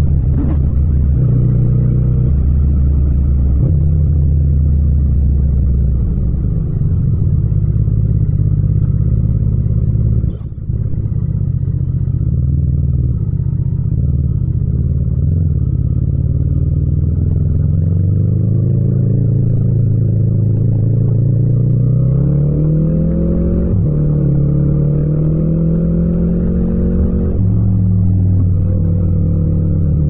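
Yamaha MT-07's 689 cc parallel-twin engine, heard from the rider's seat. It runs at low revs in slow traffic with a brief drop about ten seconds in, then the revs climb, fall back, climb again and fall back near the end.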